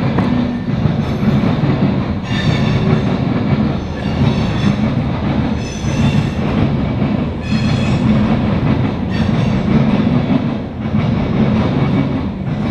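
Freight train of covered hopper cars rolling past: a steady rumble of wheels on rail, broken every second or two by brief high-pitched wheel squeals.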